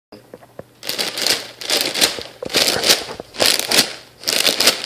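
A clear plastic bag of granola-type cereal shaken in repeated strokes: the dry flakes rattle and the plastic crinkles about five times, starting about a second in.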